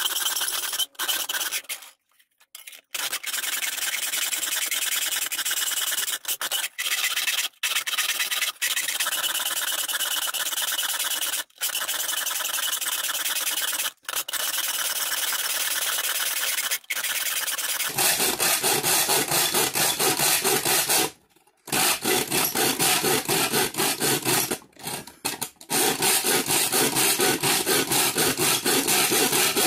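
A hand file rasping back and forth along the cut edge of a square opening in thin 1 mm aluminium sheet, stroke after stroke, with two short pauses. From about eighteen seconds in, the strokes turn quicker, more even and louder.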